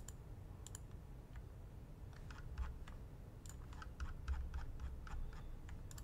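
Computer keyboard and mouse clicks and taps as files are browsed. The short clicks come in a loose scatter that grows busiest from about two seconds in, over a low hum.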